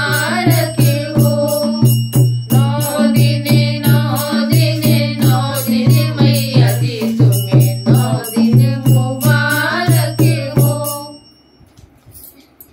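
A woman singing a Hindi devotional bhajan while playing a dholak, a two-headed hand drum, in a steady beat. Song and drum stop together about eleven seconds in, leaving only faint background sound.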